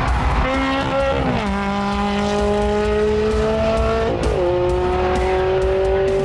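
Ferrari 360 Challenge Stradale's V8 running hard at high revs. Its pitch climbs slowly under acceleration and drops sharply twice, at upshifts about a second in and about four seconds in.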